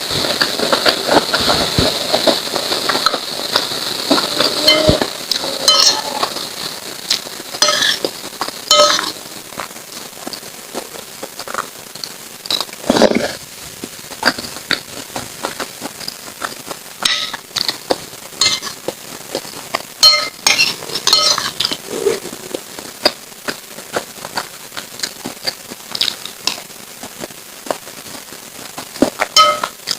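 Close-miked eating sounds of a mukbang: a spoon clinking against a bowl now and then, with chewing and mouth sounds as lontong sayur is eaten. The first few seconds are busier and noisier, then come scattered sharp clicks.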